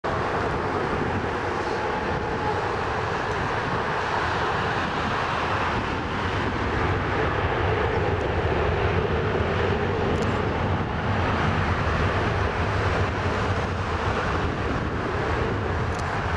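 Jet engines of a Boeing 737-800 airliner at takeoff power as it rolls down the runway: a steady, heavy jet noise that swells slightly about halfway through.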